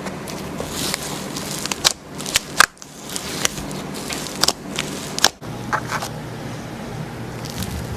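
Slime being squeezed and poked by hand, giving irregular sticky crackles, clicks and pops.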